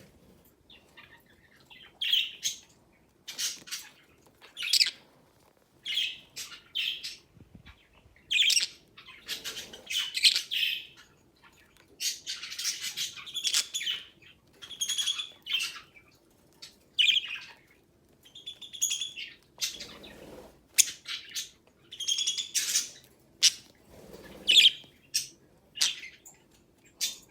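Budgerigars chirping and chattering in short, quick calls, one after another with brief pauses between.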